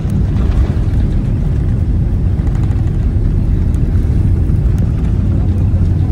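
Airliner landing rollout heard from inside the cabin: a loud, steady low rumble of the jet engines and the wheels running down the runway, with the wing spoilers deployed.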